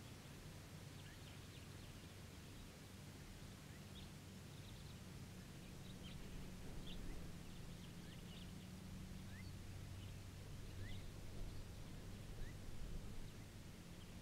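Faint outdoor ambience: scattered short bird chirps, a few rising, every second or so over a low steady hum.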